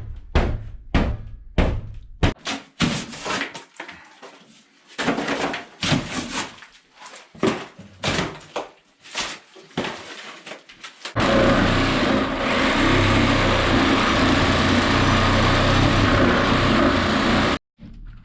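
A quick run of blows knocking drywall out of a door opening, then scattered knocks and thuds. About eleven seconds in, a power tool starts and runs steadily for about six seconds, the loudest sound here, before cutting off suddenly.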